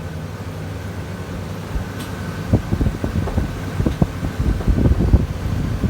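Steady hum of a walk-in cool room's refrigeration fans, with a single click about two seconds in. From about two and a half seconds in, uneven gusty low rumbling joins the hum.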